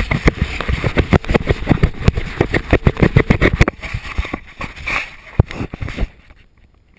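Handling noise from a helmet-mounted action camera being pulled off its mount and turned around: a rapid, irregular string of knocks and scrapes on the camera housing. It thins out and stops about six seconds in.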